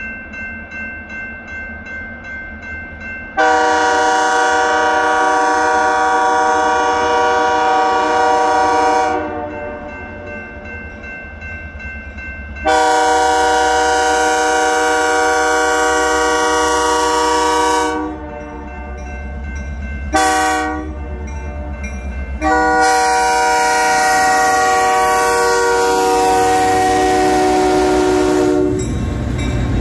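Great Lakes Central freight locomotive's multi-tone air horn sounding the grade-crossing signal: two long blasts, a short one, then a long one, over a crossing bell's steady fast ringing. The locomotives' engines and wheels rumble in as they reach the crossing near the end.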